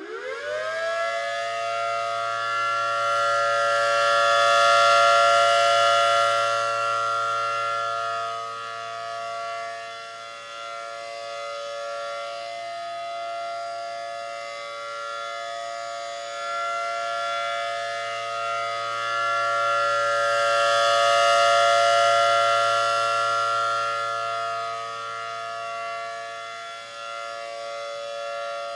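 ACA Allertor 125 rotating outdoor warning siren winding up quickly to pitch, then holding the steady tone of its Full Alert signal. The sound swells and fades twice as the rotating head sweeps toward and away from the listener.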